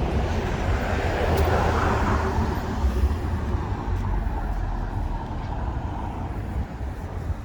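Street traffic: a motor vehicle passing with a low engine rumble, louder about one to two seconds in and then easing off.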